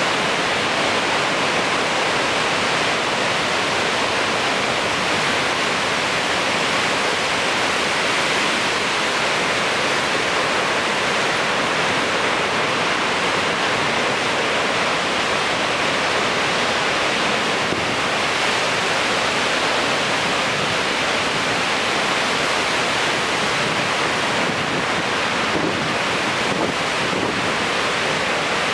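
Steady, unbroken rush of water from Niagara's Horseshoe Falls pouring into the gorge.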